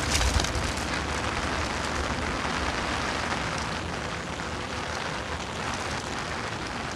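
Heavy rain falling steadily on a wet paved street, an even hiss.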